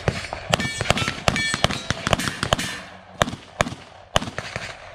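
Rapid pistol fire from a SIG P320 X5 Legion in a competition stage run: shots come several a second with a brief pause after the middle, then a few more. Some shots are followed by a ringing tone from steel targets being hit.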